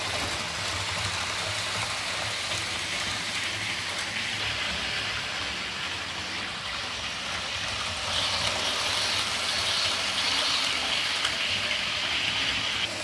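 Model Virgin Pendolino train's electric motor whirring and its wheels running on the rails as it circles the layout. It gets louder, with a higher whine, about two-thirds of the way through as the train comes nearer.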